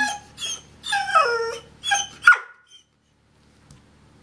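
Dog whining in a series of about five high, falling whines, unhappy at wearing a large cone collar after spay surgery.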